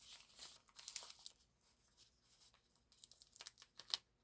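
Faint crinkling and rustling of packaging being handled and opened, in scattered short crackles, with a cluster in the first second and another a little after three seconds in.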